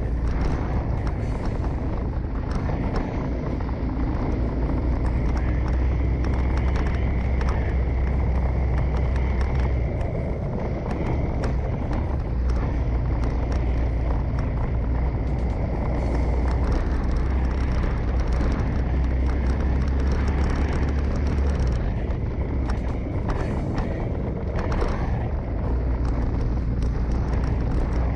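Motorcycle ridden at a slow, steady pace: a continuous engine hum with a low rumble under it.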